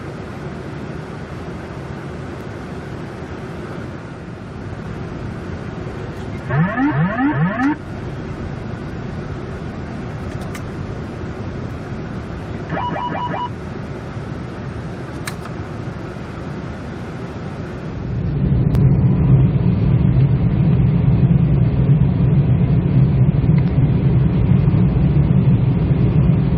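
Boeing 747-400 flight deck on approach: a steady rush of airflow and aircraft noise. About 7 seconds in come three quick rising electronic chirps, about 13 seconds in a short run of rapid beeps, and from about 18 seconds a much louder low rumble sets in and holds.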